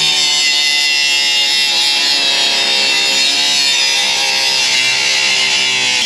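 Cordless angle grinder with a cutoff wheel cutting into a rusted steel coin box. The motor whines steadily while the wheel grinds through the metal, its pitch dipping slightly as the wheel bites.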